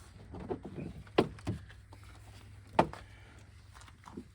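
A few sharp, short knocks over a low steady hum: two close together about a second in and a louder single one near three seconds.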